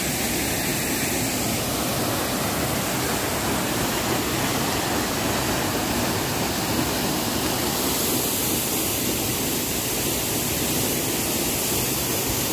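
Water of a high waterfall and its rocky cascades rushing steadily, an even, unbroken hiss of falling water.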